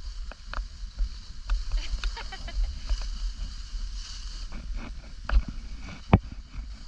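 Irregular click-clack knocking, a dozen or more sharp clicks with two louder ones near the end, over a steady low rumble. These are the click-clack noises the uploader apologises for in the snowboarding footage.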